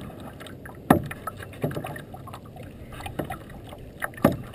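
Kayak paddling: a double-bladed paddle dipping into lake water, with four sharp splashes or knocks over a steady low wash of water.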